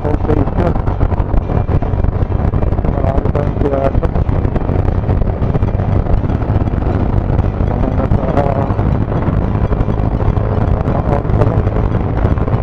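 Loud wind buffeting on the microphone of a moving motorcycle, with its engine and the surrounding traffic running underneath.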